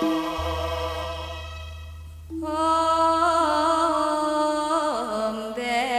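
Music with a sung voice holding long, slightly wavering notes. One note fades away, a new one comes in about two seconds in, and the pitch slides down near the end. A low steady hum sits underneath for the first few seconds.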